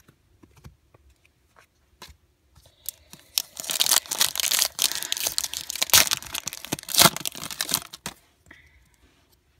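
Shiny foil wrapper of a trading-card pack being torn open and crinkled: a few light clicks at first, then about five seconds of loud crackling and tearing with two sharp rips near the end.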